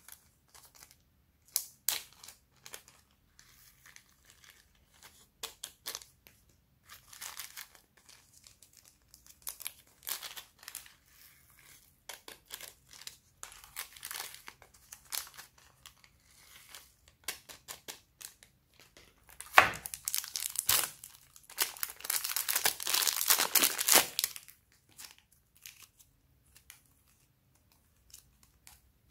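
Small plastic zip bags crinkling and rustling as they are handled and opened, in short scattered bursts. A longer, louder spell of dense crinkling comes about two-thirds of the way through.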